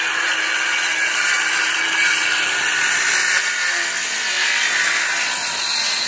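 Ryobi cordless circular saw cutting through a thick wooden post, its blade running steadily through the wood.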